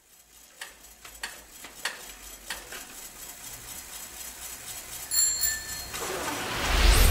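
Sound-effect intro to a rock song: evenly spaced ticking clicks, about one every two-thirds of a second, then a bicycle bell rings once about five seconds in. A rising swell of noise builds near the end, leading into the band.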